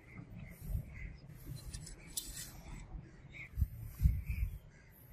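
Handling noise as a katana blade is held and a brass habaki collar is fitted onto its tang: soft rustling and scraping with a few dull low thumps, the loudest about four seconds in.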